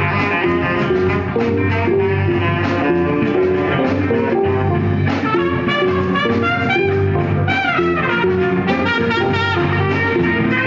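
Live funk-jazz band playing. A quick falling run of notes comes about two-thirds of the way through.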